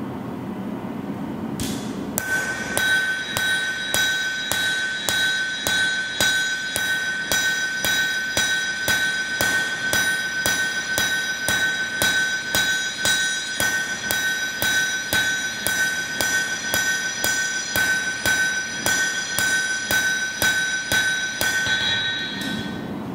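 Hand hammer striking red-hot steel on an anvil, about two to three blows a second, with the anvil ringing steadily between blows. This is the forging of the bevels of a wakizashi blade. The hammering starts about two seconds in and stops just before the end.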